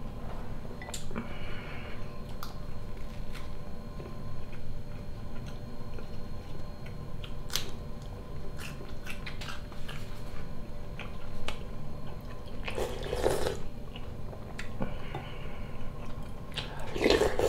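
A person eating borscht close to the microphone: chewing with scattered small wet clicks, and two longer slurps from a wooden spoon, one in the second half and one near the end.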